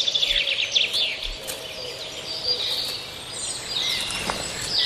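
Woodland birdsong: several small birds chirping and trilling at once, with a quick run of short high chirps in the first second and more trills near the end.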